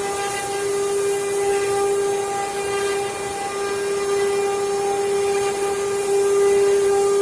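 CNC router spindle running with a steady high whine over a hiss of cutting.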